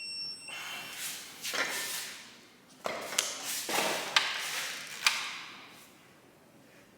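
Wrench turning the Cummins 6BT's cylinder head bolts through their final 90-degree torque step: several straining, scraping strokes with sharp clicks about three, four and five seconds in.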